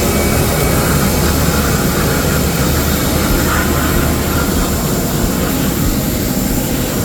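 Aircraft engine noise on an airport apron: a loud, steady rumble with a thin high whine over it.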